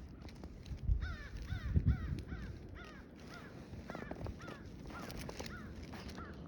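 A bird calling a quick run of short, arched notes, about three a second, over a low background hiss, with a couple of low thumps in the first two seconds.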